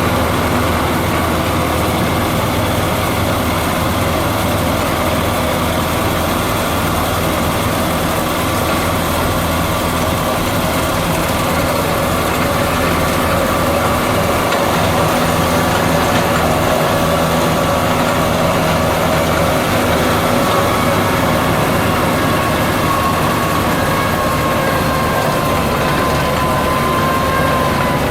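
Case IH JX95 tractor's engine running steadily while working a Kuhn FB 3130 round baler in oat straw, with a whine that drifts slowly down in pitch over the second half.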